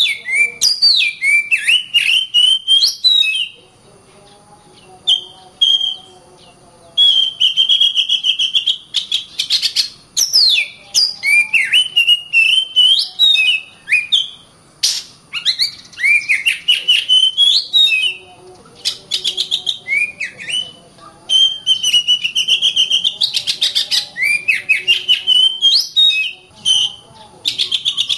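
Oriental magpie-robin (kacer) singing loud, varied phrases of whistled notes mixed with rapid clicks, breaking off for a few seconds a few seconds in, then resuming in long runs.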